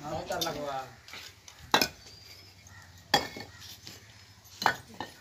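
Fired clay bricks knocking and clinking against each other as they are lifted off a brick pile and tossed aside, three sharp knocks about a second and a half apart.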